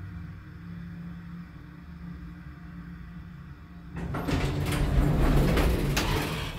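Tri-County elevator car humming steadily and low, then about four seconds in its sliding doors open loudly with a rushing rattle and a couple of sharp knocks.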